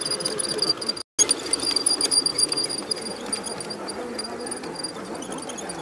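LGB garden-railway container train running along the track, its wheels giving light clicks and rattles over the rail joints, with insects chirping in a high, pulsing trill. The sound cuts out for a moment about a second in.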